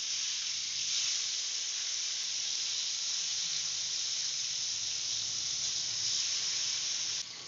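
Cut okra sizzling in hot oil in a kadai: a steady frying hiss that cuts off suddenly near the end.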